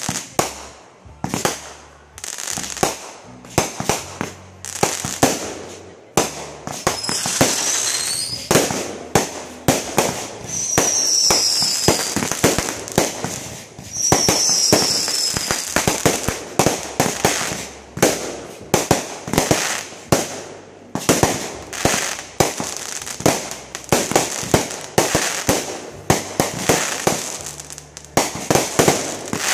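Fireworks going off in a rapid string of bangs and crackling stars. Near the middle it thickens into stretches of dense crackle, with a few short, high, falling whistles.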